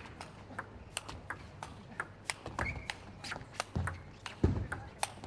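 Table tennis rally: the ball clicks sharply off the bats and the table about three times a second. A couple of duller thuds come near the end.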